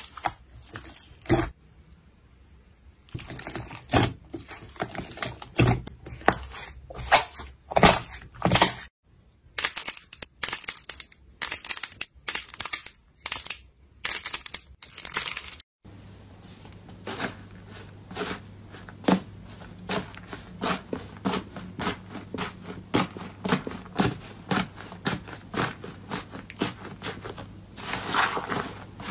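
Slime being squeezed and pressed, giving a rapid, irregular run of crackles and pops, several a second.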